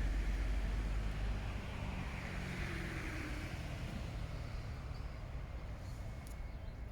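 Steady low rumble of distant road traffic, swelling a little about two to three seconds in as a vehicle passes.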